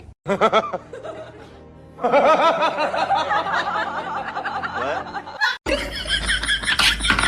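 Laughter mixed with music, in short pieces cut together, with an abrupt cut about five and a half seconds in.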